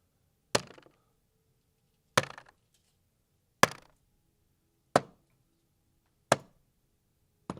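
Darts striking a dartboard: six sharp thuds, evenly spaced about one and a half seconds apart.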